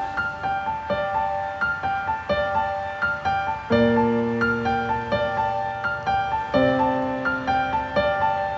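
Background piano music: a gentle melody of evenly struck notes over sustained bass chords that change about four and about six and a half seconds in.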